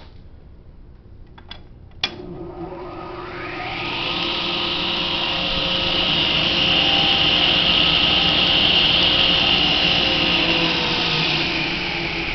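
Clausing Atlas 10-inch table saw switched on with a sharp click about two seconds in, its motor and blade spinning up over the next two seconds, then running steadily at speed with a loud, even whine.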